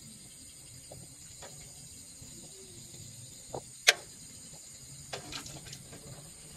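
Scattered small clicks and taps from cleaning wet squid by hand over a metal basin, the loudest a single sharp click about four seconds in, with a short cluster of clicks a second later. A steady high-pitched chirring of night insects runs underneath.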